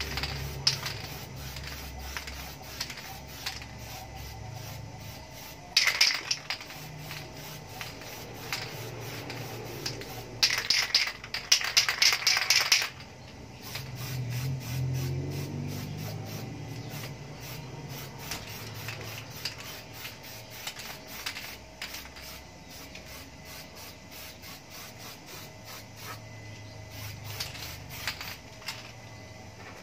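Aerosol spray paint can hissing over a motorcycle muffler, a short burst about six seconds in and a longer one of a couple of seconds near the middle, with light clicking and rubbing between the bursts.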